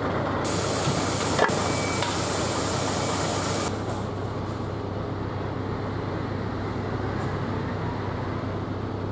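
Heavy diesel trucks running with a steady low hum. A loud hiss of released air starts half a second in and cuts off abruptly after about three seconds, with one sharp click in the middle of it.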